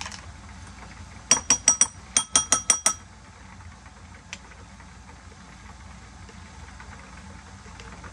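Metal spoon tapped against a hard rim, knocking mayonnaise off into the bowl: about nine ringing clinks in two quick runs, starting a little over a second in.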